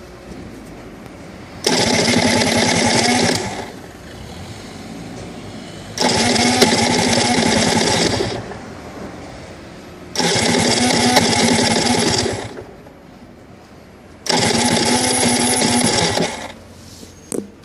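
RS 125 two-stroke motorcycle engine on a hard cold start, running loud in four bursts of about two seconds each and falling back to a much quieter sound between them.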